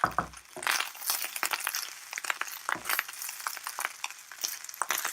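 Egg fried rice being stirred in a wok: a utensil scraping and clinking against the pan in quick, irregular strokes.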